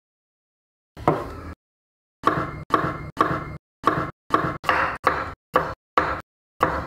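Kitchen knife chopping garlic cloves on a wooden cutting board: one chop about a second in, then about ten more in a steady rhythm of roughly two a second, each a short knock on the wood.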